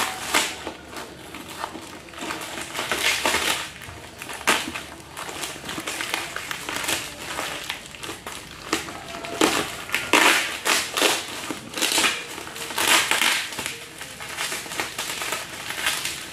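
Plastic packaging and bags crinkling and rustling as wrapped items are pulled out of a parcel by hand. The sound comes in irregular bursts and is loudest from about ten to thirteen seconds in.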